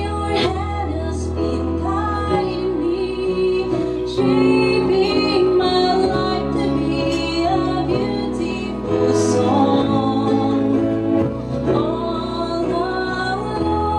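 A slow Christian song: a woman singing over instrumental accompaniment with long held bass notes and sustained chords.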